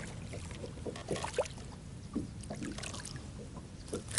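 Water lapping and trickling against a small fishing boat's hull, with scattered small knocks and clicks.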